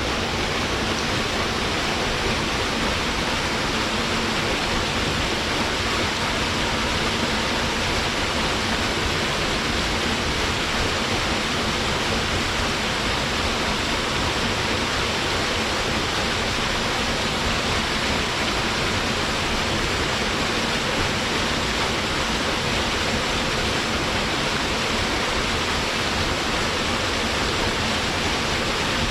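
Waterfall pouring steadily, an even rushing hiss of falling water with no change.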